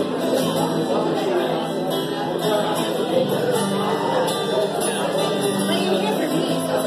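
A woman singing a country-style song to her own strummed acoustic guitar, heard live in the room.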